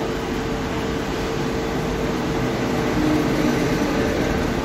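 Steady mechanical hum and hiss, with one constant tone in it and no distinct events.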